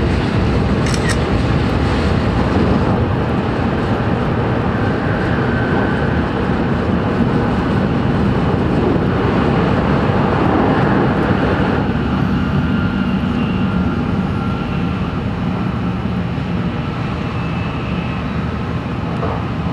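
Running noise inside an N700-series Shinkansen motor car at speed: a loud, steady rumble with faint thin whines over it, dropping a little in level about two-thirds of the way through.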